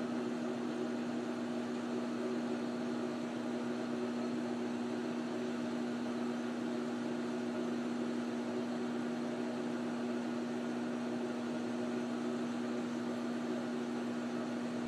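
Precision Matthews 1236-T lathe running at a steady pitch, with a constant hum over an even hiss, while a carbide parting tool feeds under power into a 304 stainless steel bar. The cut goes smoothly, without chatter or squeal, and the chip peels off cleanly.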